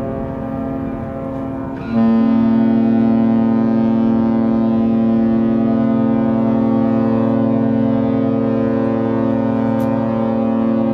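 Cruise ship MSC Orchestra's horn sounding as she sets sail from harbour: a weaker, wavering tone for about two seconds, then a loud, steady long blast that holds.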